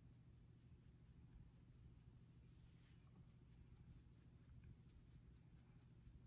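Near silence: a low steady room hum with faint, soft strokes of a flat kabuki-style makeup brush blending cream contour on skin.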